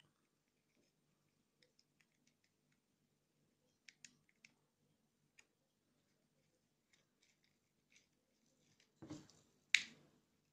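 Small plastic parts of a toy spinning-top watch being handled: faint scattered clicks, then a short scrape and one sharp plastic snap near the end as the propeller disc is pressed onto its launcher.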